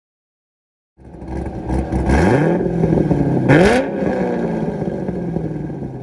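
Car engine starting up and being revved twice, then settling back to a steady idle.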